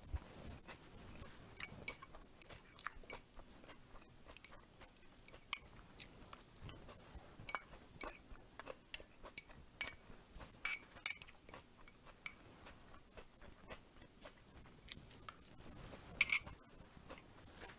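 Close-up eating sounds: chewing, with a metal spoon clinking and scraping against a small glass bowl. The clinks come scattered throughout, a few sharper ones in the second half.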